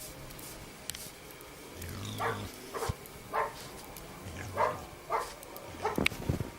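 Dog barking repeatedly: a run of about six short barks, starting about two seconds in.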